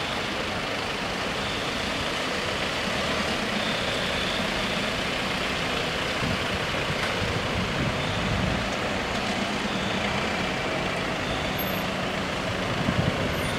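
Road traffic: the engines of motor scooters and small cars idling in a steady hum, with a car driving slowly past about halfway through.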